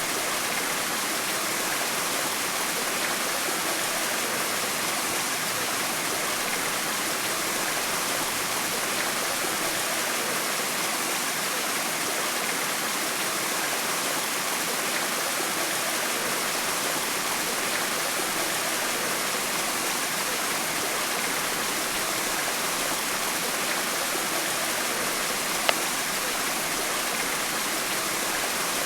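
Steady rush of flowing water, unchanging throughout, with one brief click near the end.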